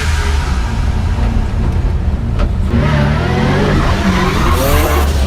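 Twin-turbo 6-litre V12 of a Mercedes W202 C-Class drift car revving hard through a straight-cut manual gearbox, engine pitch rising and falling, with tyres squealing as it drifts. There is a sharp break about two and a half seconds in.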